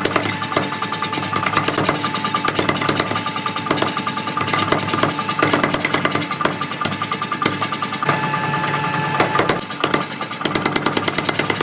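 Mechanical power hammer pounding hot steel in rapid, steady blows, several a second, during axe forging.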